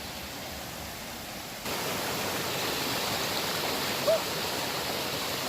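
Mountain stream rushing steadily, a smooth even noise that gets suddenly louder about a second and a half in.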